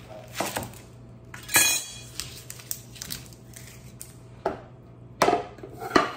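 Scattered knocks and clinks of kitchen work: a knife cutting through an onion onto a wooden cutting board, and a knife set down with a sharp metallic clink about a second and a half in. Near the end, more knocks as a stainless steel skillet is shifted on an electric hot plate.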